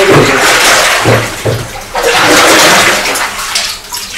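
Liquid pottery glaze sloshing and swirling in a large tub as it is stirred with a long wooden paddle, in two loud surges.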